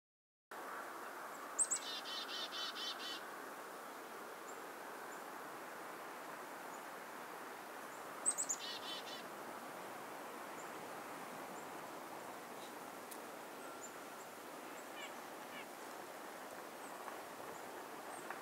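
Black-capped chickadee giving its chick-a-dee call twice: a sharp high note, then a quick run of lower dee notes. The second call is shorter than the first. A steady faint background hiss runs underneath.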